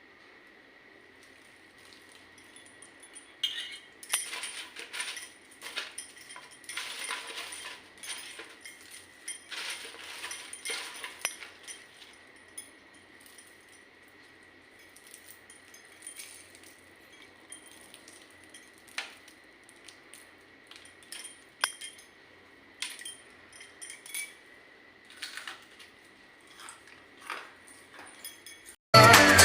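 Kitchen utensils clinking and knocking in a scattered run of sharp metallic taps, with a faint steady high tone underneath. Loud music cuts in right at the end.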